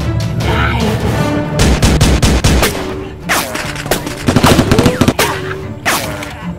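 Rapid bursts of gunfire sound effects, a fast run of shots twice with single shots between, some trailed by a falling sweep, over background music.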